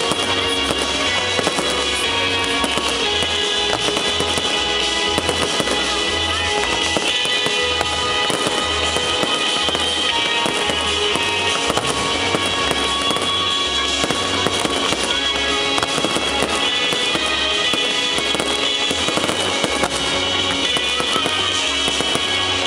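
Aerial fireworks bursting and crackling in quick succession throughout, mixed with loud music that has a steady, pulsing bass beat.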